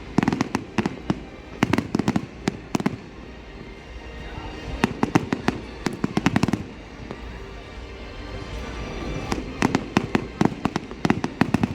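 Fireworks display going off in rapid volleys of sharp bangs and crackles, in four bursts separated by short lulls.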